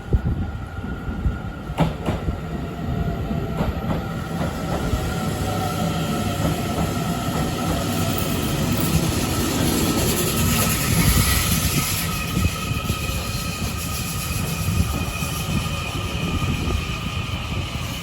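Taiwan Railways EMU900 electric multiple unit moving through the station. It gives steady whining tones and a few wheel clicks, and a hissing scrape swells in the middle. The uploader attributes the scrape to an abnormal noise from the third car's pantograph.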